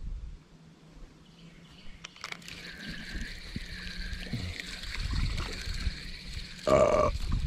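A spinning reel being cranked to wind in line, giving a steady, slightly wavering whir. Near the end comes a short, loud call.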